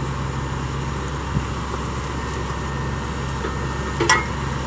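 Borewell drilling rig's engine and machinery running steadily, a constant low hum over a broad mechanical hiss. A short, sharper noise cuts in about four seconds in.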